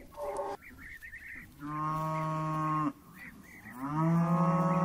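Cows mooing: two long, level moos, the second beginning near the end, with a short call right at the start.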